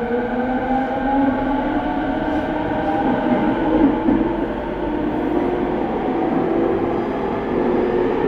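Tokyo Waterfront Area Rapid Transit 70-000 series electric train running: the traction motors and inverter whine in several tones that slowly shift in pitch, over a steady rumble of wheels on rail.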